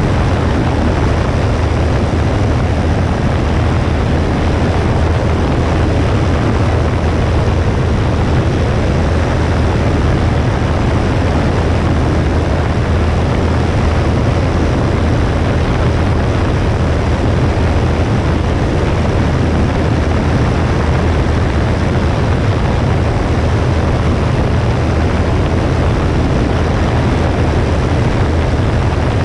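Cessna 172S's four-cylinder Lycoming engine and propeller droning steadily, heard from a wing-mounted camera with a constant rush of air over it.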